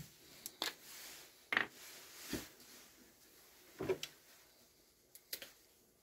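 Several light, separate knocks and clicks of small objects being handled and set down in a workshop, with quiet gaps between them.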